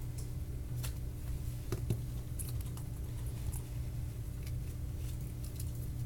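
Scattered light clicks and taps of small tools and parts being handled, over a steady low hum.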